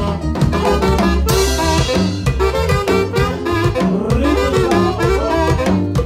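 Live band music: a keyboard melody over a bass line, with a drum kit keeping a steady beat and a cymbal crash about a second in.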